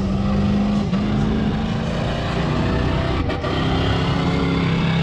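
Off-road truck engine held at high revs, a steady drone with a few brief dips in pitch.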